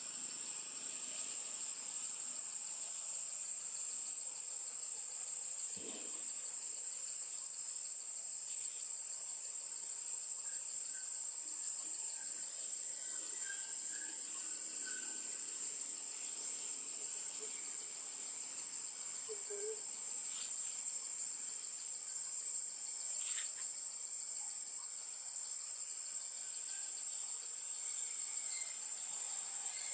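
A steady, high-pitched chorus of insects droning without a break, with a few faint short chirps around the middle.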